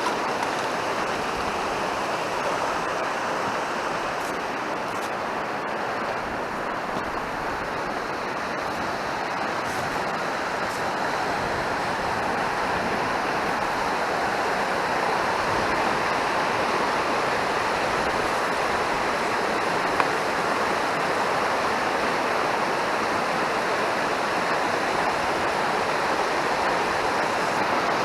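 Fast mountain stream rushing steadily, an even loud hiss of running water.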